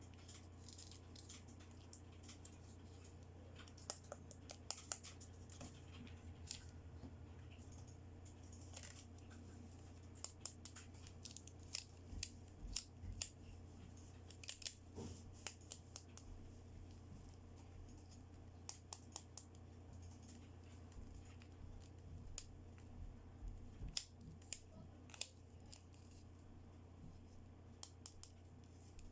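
Quiet unboxing handling of small plastic toy accessories and their packaging: scattered sharp clicks and snips at an irregular pace over a faint low hum.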